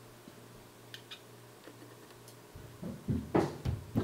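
A Glock 23 frame and tools being handled on a work mat: a couple of faint clicks, then a run of low knocks in the last second and a half as the frame is set down on a pair of pliers to work out a stubborn frame pin.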